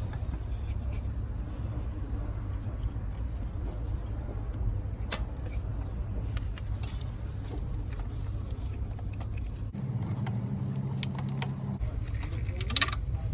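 A steady low rumble with a few sharp metallic clicks and clinks of tools and parts being handled; about ten seconds in, the rumble gives way for two seconds to a steadier low hum.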